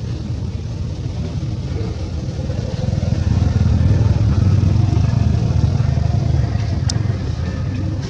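A motor vehicle engine running close by: a low rumble that grows louder about three seconds in and eases off near the end, with a sharp click near the end.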